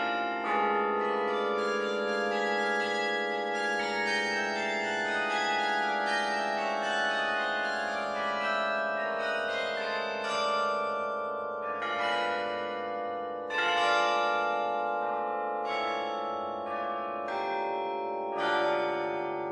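Carillon of the Peter and Paul Cathedral playing a melody: bronze bells struck one after another, their notes ringing on and overlapping, with a few louder strikes in the second half.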